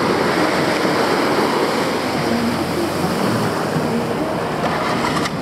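Small waves washing in and out on a sandy beach: a steady rush of shallow surf.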